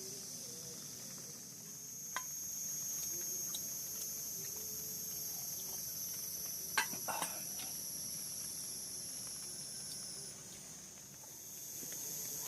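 Steady high-pitched insect chorus in two even bands, which drops out for about a second near the end. A few sharp taps come about two seconds in and a cluster around seven seconds in.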